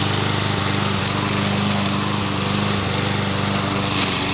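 Single-cylinder engine of a walk-behind gas lawnmower running steadily at a constant speed.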